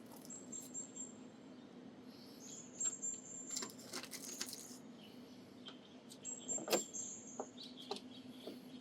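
Plastic push-in trim clips being handled and pressed into a Volvo XC90's engine bay trim cover: scattered light clicks and knocks, the sharpest snap about seven seconds in. A steady low hum runs underneath, and short high chirps come and go several times.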